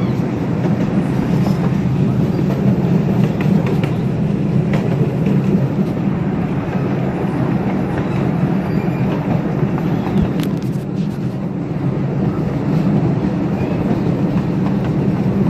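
Ride on a small live-steam railroad train: the cars rolling steadily along the track with a continuous rumble and an occasional click.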